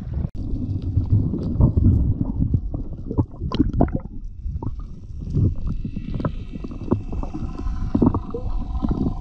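Muffled underwater sound of the sea heard through a submerged camera: low rumbling and gurgling water with scattered knocks and clicks. From about six seconds in, faint steady tones join it.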